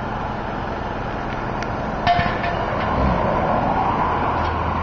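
Steady street noise with a rushing sound, a few sharp metallic clicks about two seconds in, and a low engine hum that comes in about three seconds in.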